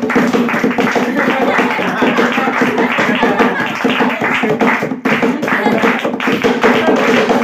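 Rhythmic group clapping and a hand slapping a wooden school desk like a drum, keeping time for a bhangra dance, with voices shouting and singing along.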